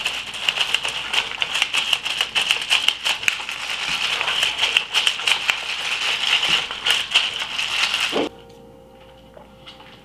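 Gin and tonic fizzing over ice in a plastic cup, a dense crackling with small clinks of ice. It cuts off abruptly about eight seconds in, leaving faint steady tones.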